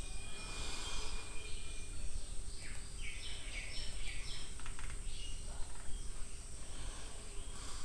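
Steady background noise on an open microphone, with a low hum and scattered faint high-pitched chirps.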